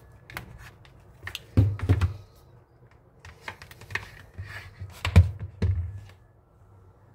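Handling noise of a smartphone, its charging cable and a cardboard box on a table: a run of clicks and taps, with louder thumps about a second and a half in and again around five to six seconds in.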